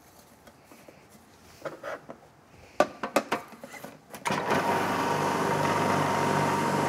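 Magimix Duo Plus XL centrifugal juicer motor starting up about four seconds in and running steadily, spinning its grating basket as watercress is pressed down the feed tube. A few light knocks come before it.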